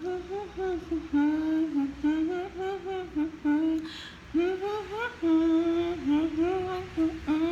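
A woman humming a slow song melody, sliding up into notes and holding them.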